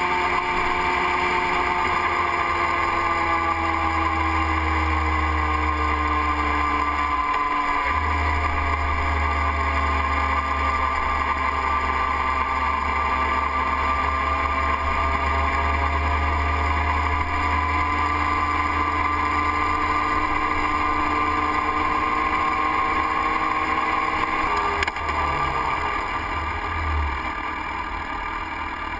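Motorcycle engine running while the bike is ridden, heard from on the bike. Its note drifts slowly down and back up with road speed, then changes abruptly near the end as the low rumble drops away.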